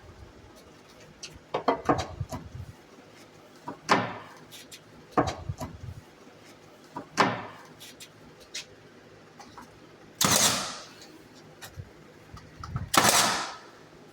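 Nails being driven into exterior door trim: sharp single impacts one to two seconds apart, then two longer, hissing bursts about ten and thirteen seconds in.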